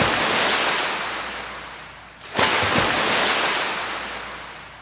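Ocean surf: two waves break, each rushing in suddenly and then washing out with a slowly fading hiss, the second a little over two seconds in.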